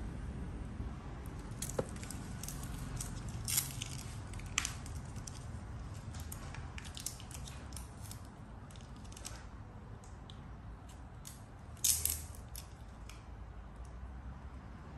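Scattered light clicks and crackles of handling noise, with a louder cluster about twelve seconds in, over a low steady rumble.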